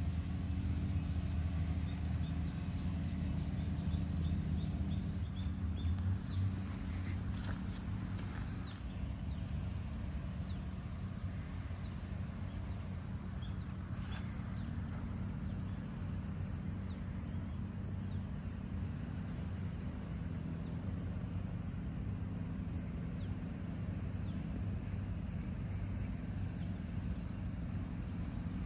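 Insects calling in one continuous high, steady drone. Beneath it a low engine hum is louder for the first few seconds, then eases off.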